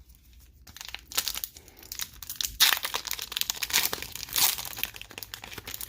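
Plastic Pokémon booster pack wrapper being crinkled and torn open by hand: irregular crackling in bursts, loudest around the middle.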